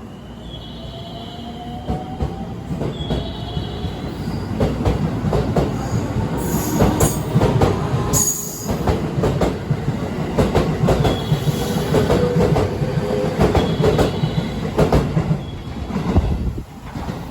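Electric commuter train running along the platform. Its wheels click over the rail joints under a steady rumble, with faint motor whine tones and a brief high wheel squeal about seven seconds in. The sound swells through the middle and falls away near the end.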